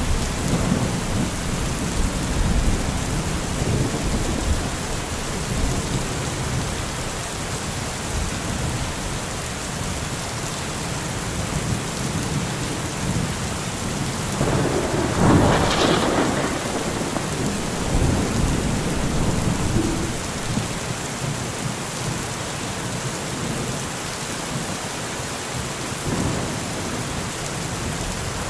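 Steady rain with low rumbles of thunder, and a louder, sharper thunderclap a little past halfway.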